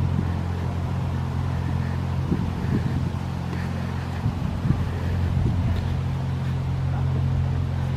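A steady low engine drone, with a few soft footsteps on the towpath about two to six seconds in.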